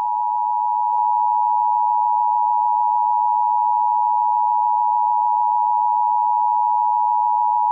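Emergency Alert System attention signal: the two-tone EAS alarm, two close pitches sounding together as one steady, unbroken tone for about eight seconds, stopping right at the end.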